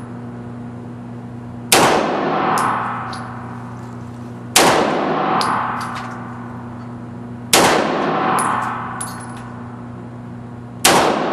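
Four single handgun shots, about three seconds apart, each a sharp crack followed by a long reverberant tail, with a few faint ticks after some of them. A steady low hum runs underneath.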